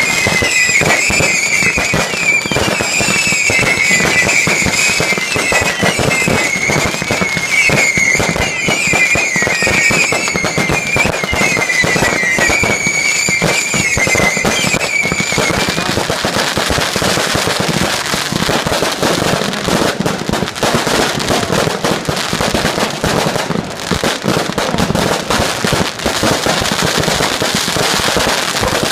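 A fireworks display going off non-stop, with rapid bangs and crackling. Through the first half, several high, wavering whistles sound over the bangs; they stop about halfway, leaving dense crackle.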